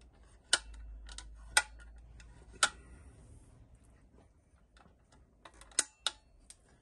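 Sharp clicks and light knocks from handling the vintage military rail signal lamp: three loud clicks about a second apart, a few fainter ticks, then two clicks in quick succession near the end.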